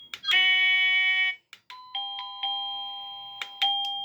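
AVANTEK wireless doorbell receiver switching between chime tunes: a few clicks, then a loud buzzy chord of electronic tones for about a second that cuts off abruptly. After more clicks the basic ding-dong chime starts, electronic bell notes struck one after another, each fading, stepping down in pitch.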